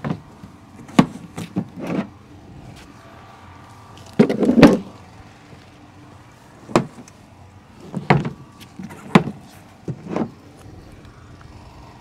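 Band-wheel guards of a Norwood LumberMax HD38 sawmill being unlatched and lifted off by hand: a string of clicks and clunks, with the loudest cluster about four seconds in.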